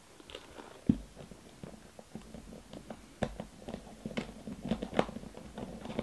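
Hard plastic Baby Secrets Merbabies bathtub case clicking and tapping as fingers press and pry at its locked lid: a string of small irregular clicks, with a louder knock about a second in and another around five seconds in.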